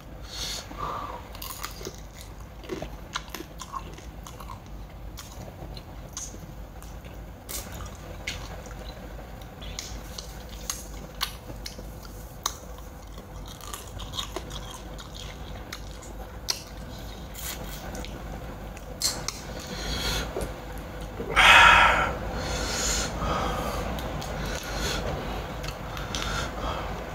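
Close-up eating sounds: chewing and crunching crab in a spicy crab salad, with many small scattered clicks and crunches. About three quarters of the way through there is one louder, noisy sound lasting about a second.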